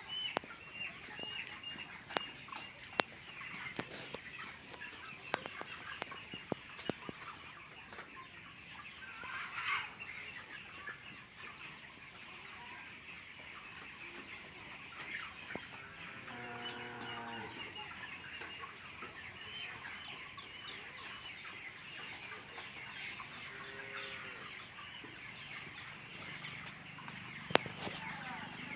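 A flock of chickens in a poultry shed, many birds clucking and calling at once, with scattered sharp clicks.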